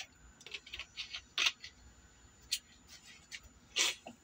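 A man drinking from a plastic soft-drink bottle: a few faint gulps and short clicks and rustles of the bottle being handled, with two louder ones about a second and a half in and near the end.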